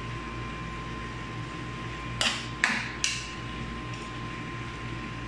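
A long metal serving spoon scraping and knocking against a frying pan three times in quick succession, about two seconds in, while stirring chicken pieces with tomatoes, over a steady low hum.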